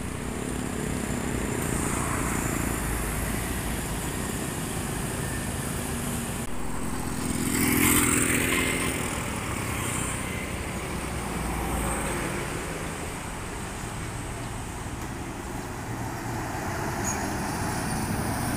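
Road traffic at a junction: cars, motorcycles and diesel trucks passing with their engines running, one vehicle louder as it passes close about eight seconds in.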